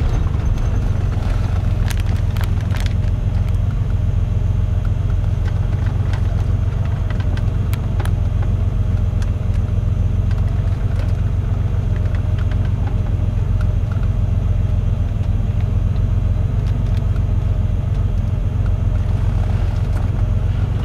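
Porsche 911 flat-six engine idling with a steady low rumble, with a few light clicks.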